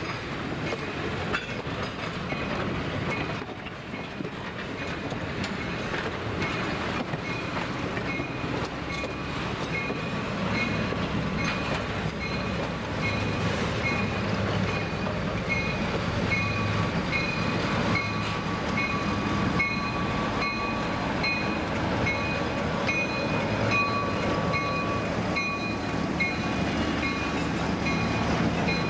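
Passenger coaches roll past on jointed track with wheels clicking, while a grade-crossing bell rings steadily at about one and a half strokes a second. From about ten seconds in, the diesel engine of the Lima LS-1000 switcher locomotive grows louder as it comes close.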